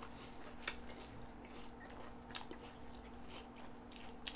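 Faint chewing of a mouthful of milk-soaked Cinnamon Toast Crunch cereal, with a few soft crunches spaced out through it.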